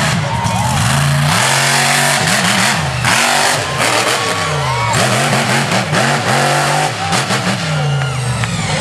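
Hooked monster truck's engine revving hard over and over, its pitch climbing and falling again several times in quick succession as the truck is driven.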